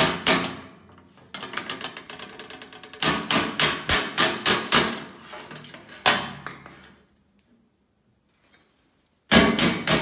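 Body hammer striking sheet metal, bending a flange over a steel edge by hand: a few heavy blows, a quick run of lighter taps, then steady heavy blows about three a second. It stops about seven seconds in, and the blows start again near the end.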